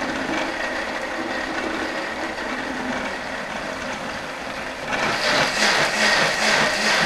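Countertop blender running, pureeing hot celery and potato soup; about five seconds in it grows louder and takes on a pulsing churn.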